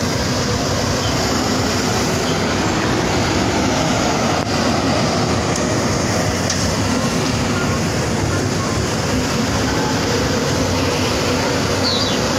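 Police water cannon truck running while it sprays disinfectant: a steady, loud engine noise under the hiss of the spray jet.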